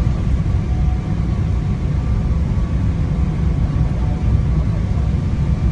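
Steady low rumble of cabin noise inside a Boeing 777-300ER on final approach: airflow over the airframe and the GE90-115B turbofans at approach power, with a few faint steady tones above the rumble.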